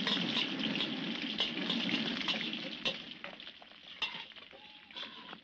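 Fried rice sizzling in a hot wok, with a metal utensil clinking and scraping as it is stirred. The sizzle fades over the last two seconds or so.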